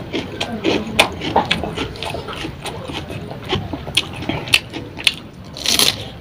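Close-up eating sounds: wet chewing and lip-smacking of rice and fish curry, with irregular sharp clicks from the mouth. Near the end comes a louder crunching bite into a raw leaf filled with rice.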